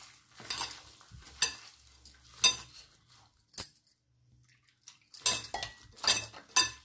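A hand squishing soaked soya chunks through a thick curd marinade in a glass bowl, with sharp ringing clinks about once a second as the bangles on the wrist knock against each other and the glass. The clinks pause briefly just past the middle, then come close together near the end.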